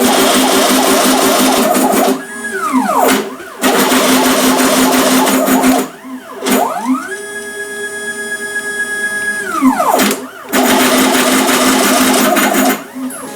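Stepper motors of a DIY CNC machine driving its axes, with a steady whine that ramps smoothly down in pitch and back up as the moves decelerate and accelerate. The longest steady run lasts about two and a half seconds, from about seven seconds in.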